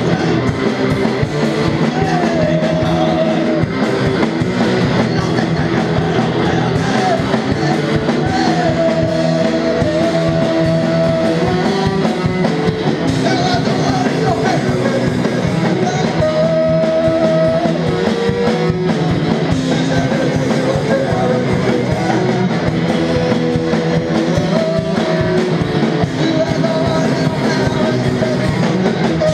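Live rock band playing: electric guitar, bass guitar and drum kit, with a melody line of held notes that slide up into pitch and recur every few seconds.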